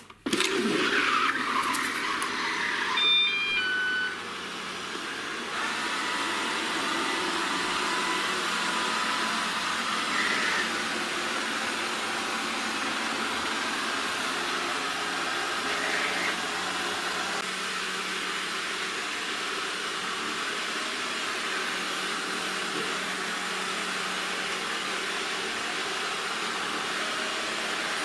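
ECOVACS Deebot DN79S robot vacuum cleaner switched on with a click of its top button: its suction fan and brushes start up, it gives a short run of beeps at different pitches about three seconds in, then runs steadily as it drives around the room.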